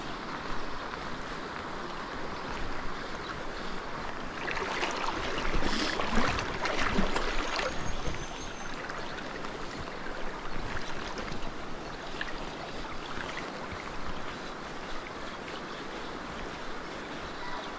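River water flowing steadily as a constant rush, with a louder, rougher stretch of noise between about five and eight seconds in.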